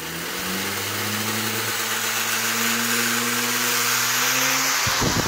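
Model aeroplane motor spinning a propeller that drives a toy-train caboose: a steady hum under the whoosh of air, its pitch climbing slowly as the motor speeds up.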